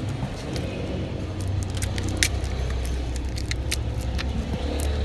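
Scattered light clicks and taps of a motorcycle piston pin and its packing being handled, the sharpest about two seconds in, over a steady low rumble.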